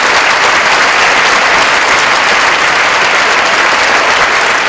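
Large audience applauding steadily, a dense mass of clapping that begins to fade at the very end.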